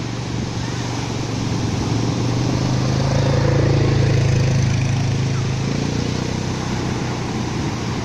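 Surf washing up a sand beach, with wind on the microphone. A low engine hum swells about two seconds in, is loudest near the middle and fades again.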